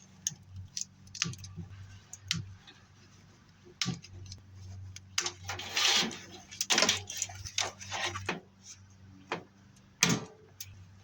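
Wire cutters snipping through a furnace's wiring: scattered sharp clicks and metal clinks, a few louder snips around the middle, over a faint steady low hum.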